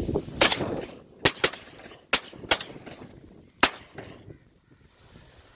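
Shotguns firing at a flock of ducks overhead: six sharp shots over about three seconds, irregularly spaced, two of them almost together.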